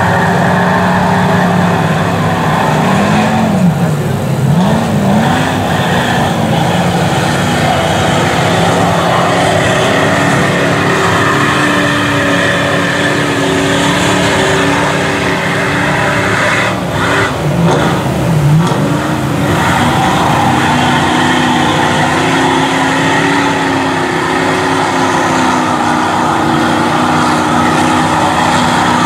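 Lifted Chevy Avalanche mud truck's engine revving hard as it churns through deep mud, with mud spraying off the tyres. The engine pitch dips and climbs back up twice, about four seconds in and again around seventeen seconds in.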